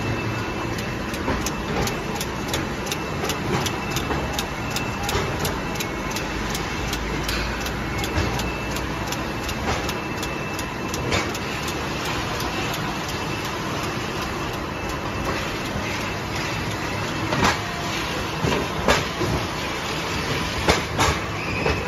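A bottling line running: a steady machine din with frequent clicks and clacks as plastic water bottles jostle along the conveyor. Sharper, louder knocks come near the end.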